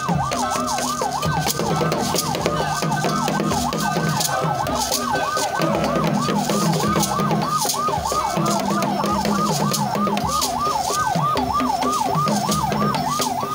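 Vehicle siren wailing in a fast up-and-down yelp, about three sweeps a second, with a lower steady tone that comes and goes in stretches of a second or two beneath it.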